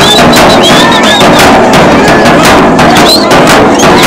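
Loud live ingoma dance accompaniment: a drum beaten in a steady rhythm and many people clapping, with crowd voices and short high whistles that rise and fall.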